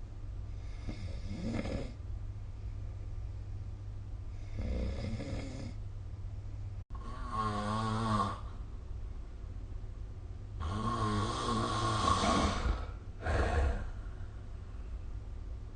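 A sleeping person snoring: five snores at uneven gaps of about two to three seconds, the middle and later ones louder, longer and with a buzzing tone, over a steady low hum.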